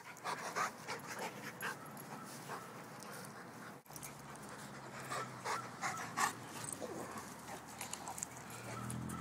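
St. Bernard panting close to the microphone, with scattered short rustles and knocks throughout.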